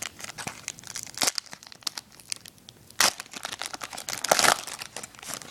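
A 2010 Topps Chrome card pack's wrapper being torn open and crinkled: a run of sharp crackles with a few louder rips, the loudest about four seconds in.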